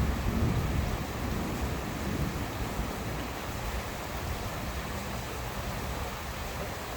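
Steady rain falling during a thunderstorm, with a low rumble of thunder in the first couple of seconds that fades back into the rain.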